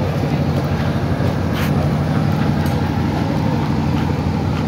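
Steady low hum of a diesel engine running, with a few faint ticks over it.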